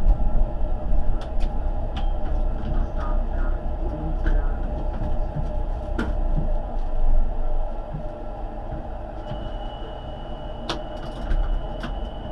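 Tram rolling slowly on street track, heard from the driver's cab: a steady low rumble of motors and running gear with scattered clicks and rattles, growing quieter as it slows almost to a stop. About nine seconds in, a thin steady high tone joins.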